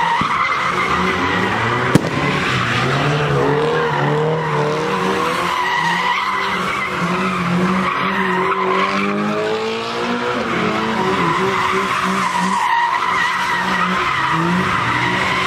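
Car doing donuts: the engine is revving hard and held high while the tyres squeal steadily in a wheelspin. A single sharp crack comes about two seconds in.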